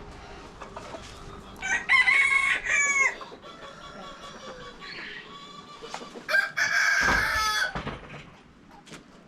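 Rooster crowing twice, each crow about a second and a half long and dropping in pitch at the end, with quieter chicken calls in between.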